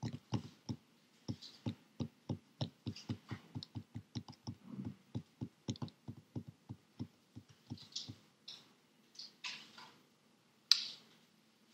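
Computer keyboard typing, picked up faintly by a laptop microphone: a quick, uneven run of key clicks that stops about nine seconds in. A few soft hissy sounds follow, and one louder sharp sound comes near the end.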